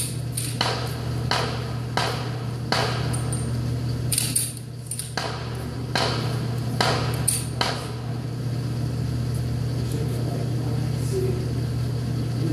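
Taurus Millennium G2 Pro 9mm pistol fired about ten times at an uneven pace over the first eight seconds, each shot a sharp crack echoing in an indoor range. A steady low hum runs underneath, and the shots stop for the last few seconds.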